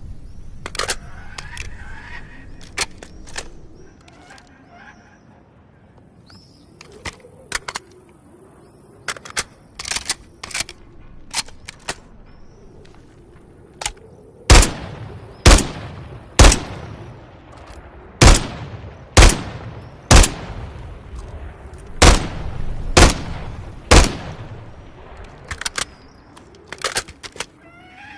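SVA 545 rifle firing. Scattered lighter shots come first, then about halfway through nine loud, sharp shots in three quick bursts of three, each about a second apart. Birds chirp faintly in the background.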